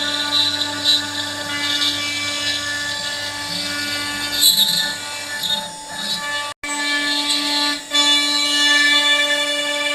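CNC router spindle running steadily with a high whine while its bit mills ash wood, with the rough noise of the cut under it. The sound drops out for an instant about two-thirds through and resumes.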